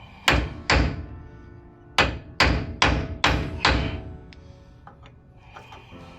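Seven hammer blows on steel suspension parts, each ringing on afterwards: two strikes, then a quicker run of five. This is hammer work during a ball joint replacement on a truck's front suspension.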